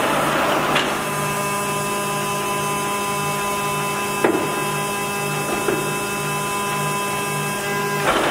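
Timemaster gap bed engine lathe running under power, its headstock gearing giving a steady whine over a low hum that pulses about twice a second. A few short clicks or knocks come through it, about four times.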